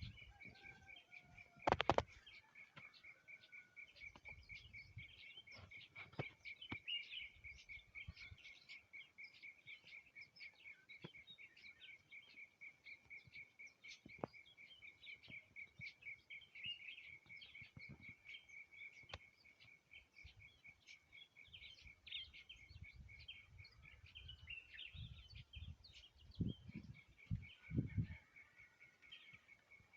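Faint birdsong: many short chirps and calls over a steady, pulsing high trill. There is a sharp knock about two seconds in and a few low thumps near the end.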